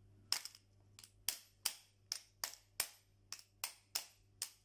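Repeated light, sharp taps, about three a second and evenly spaced, driving a ball bearing down onto a ceiling fan motor's shaft to seat it in its place.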